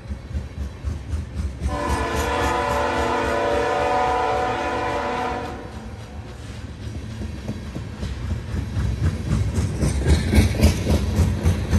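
A freight train's diesel locomotive air horn sounds one steady blast of about four seconds over the low rumble of the passing train. After it, the tank cars' wheels clack over the rail joints in a steady rhythm that grows louder near the end.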